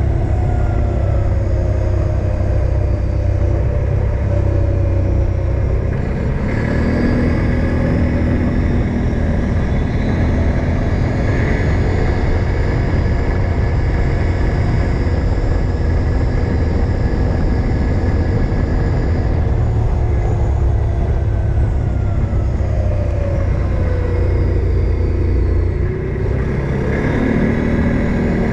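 Odes 800 off-road vehicle's engine running under way, with a steady low rumble. The engine note rises and falls several times as the revs change.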